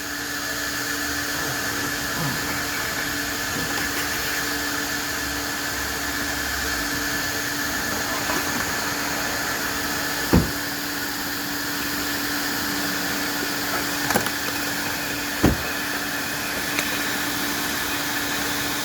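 Coin-operated car wash vacuum running steadily with a constant hum, with three short sharp knocks in the second half.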